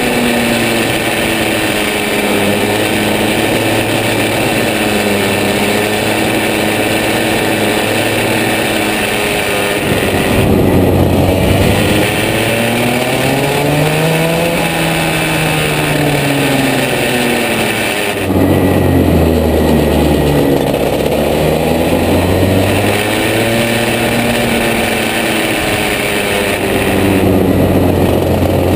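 Rotax 125cc two-stroke single-cylinder kart engine running hard through a lap, its pitch rising on acceleration and falling into corners. It drops suddenly about 18 seconds in as the throttle comes off, then climbs again.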